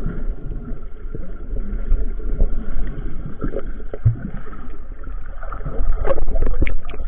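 Muffled underwater sound from a camera held below the surface: a steady low water rumble with scattered clicks and knocks, which come thicker and sharper near the end as a spider conch is pulled off the rocks by hand.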